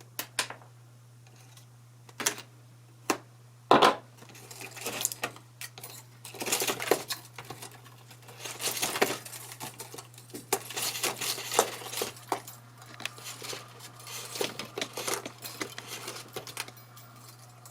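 Small metal guitar hardware and hand tools clinking and rattling, with a few separate sharp clicks in the first four seconds followed by dense irregular clinking.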